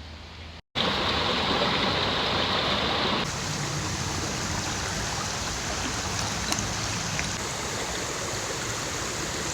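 A stream running: a steady rush of flowing water, a little quieter after about three seconds.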